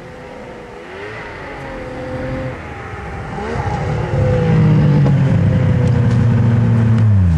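Snowmobile engine revving harder and growing louder as the sled ploughs through deep powder, then held at high revs and loud for about three seconds; right at the end the pitch starts to drop.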